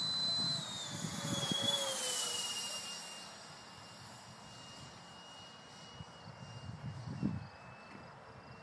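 High whine of a FlyFly Mirage 2000 electric ducted-fan model jet in flight. It is loudest at the start, drops in pitch over the first couple of seconds as the jet passes and moves away, then holds a fainter steady whine.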